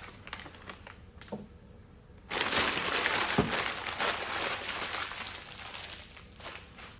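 Packaging wrap crinkled and crumpled by hand: a few light clicks, then about two seconds in a dense crackling rustle that starts suddenly and lasts about four seconds before dying away.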